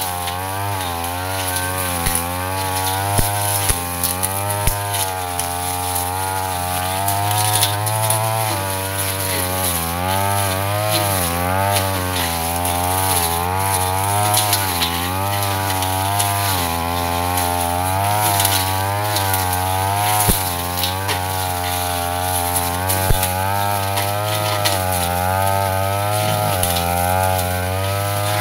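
Backpack brush cutter engine running hard, its pitch wavering up and down as the blade swings through dense ferns, with a sharp tick now and then.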